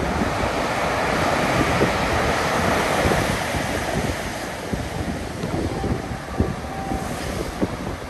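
Storm surf breaking on the shore, a wave's rush swelling over the first few seconds and then easing off. Wind buffets the microphone throughout in low gusts.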